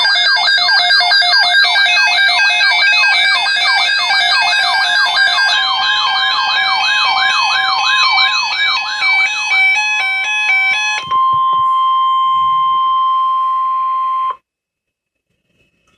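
Electronic siren-like tone sweeping up and down rapidly, about two to three times a second, for the first ten seconds or so. A short run of stepped beeps follows, then a steady single tone of about three seconds, the NOAA Weather Radio 1050 Hz warning alarm tone that precedes an alert broadcast, which cuts off abruptly.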